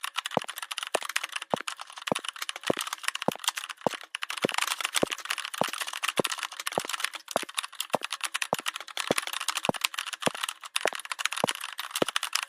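Dense, rapid clicking with stronger, sharper clicks about twice a second, over a faint steady hum.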